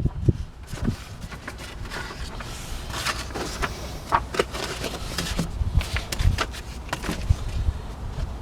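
Handling noise: paper and packaging rustling as the box's contents are unpacked, with scattered small clicks and knocks over a low rumble.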